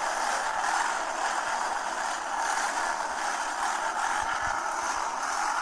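Motorcycle engines running, played back through a Sony Xperia XZ2 smartphone's small loudspeaker, so the sound is thin with no bass. The level holds steady.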